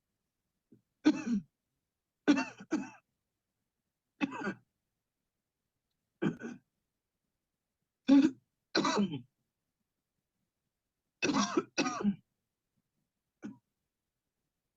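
A person coughing in repeated short fits, hacking and clearing the throat, about ten coughs in all. Some come singly and some in quick pairs, a second or two apart.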